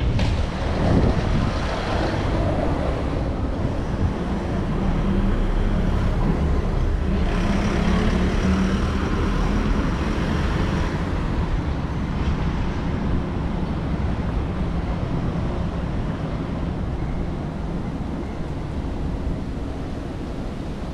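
Road traffic passing on a city street, with a heavier vehicle's engine hum rising and passing through the middle.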